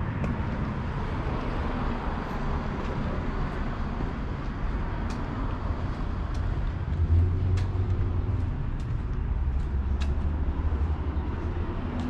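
Road traffic: a steady hiss of passing vehicles, with a heavier low rumble through the second half.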